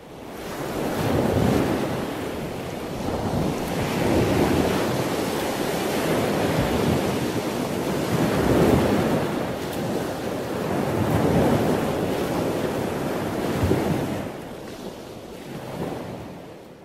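Surf washing onto a flat beach, with wind buffeting the microphone; the noise swells and eases about every two to three seconds and fades out near the end.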